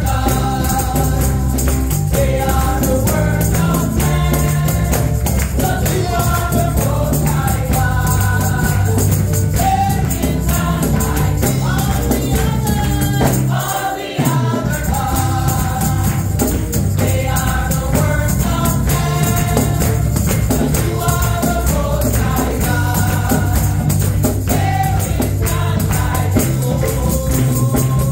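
Gospel praise team singing together over a band with a steady bass line and percussion. The bass drops out briefly about halfway through.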